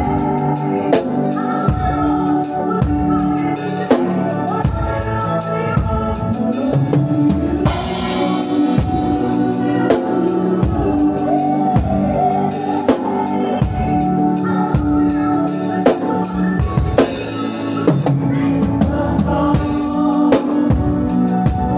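Drum kit played live in a gospel band: a steady beat of bass drum and snare, with a few cymbal crashes, over other instruments holding sustained notes.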